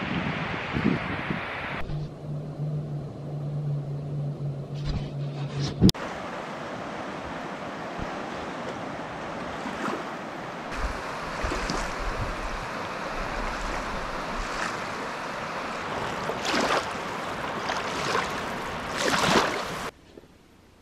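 River running fast over a shallow rocky bed: a steady rushing wash of water that cuts off suddenly near the end.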